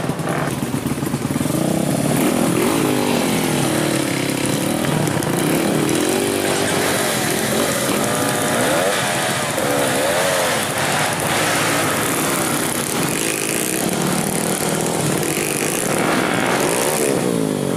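Trail dirt bike engines revving up and down, their pitch rising and falling over and over as the bikes labour up a steep, muddy climb.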